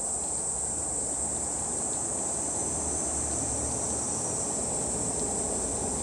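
Cicada buzzing in a steady, unbroken high-pitched drone, over a low background rumble.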